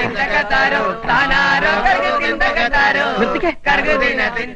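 Male voices singing a Malayalam folk song (nadan pattu) with a wavering, chant-like line and a brief break about three and a half seconds in.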